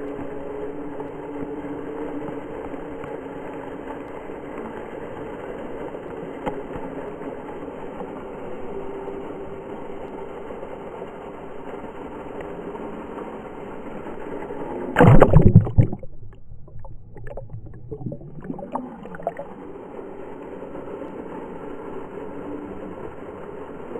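Steady rush of water pouring and splashing into a swimming pool. About fifteen seconds in there is a loud burst of splashing, and the sound then turns dull and quieter for a few seconds before the rush returns.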